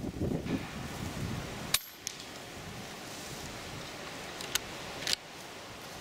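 A 5.5 mm Edgun Matador R3M PCP air rifle fires one shot about two seconds in, a single sharp crack. Two lighter clicks follow near the end. Strong wind buffets the microphone in the first seconds and eases after the shot.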